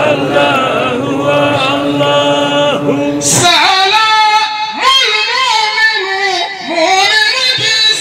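A man singing a Sufi devotional poem through a handheld microphone, in long held notes with gliding, ornamented turns. About three seconds in the line breaks with a brief hiss and goes on at a higher pitch.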